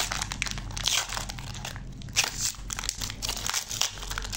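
Foil toffee wrapper crinkling as it is pulled open by hand, in quick irregular bursts of rustling.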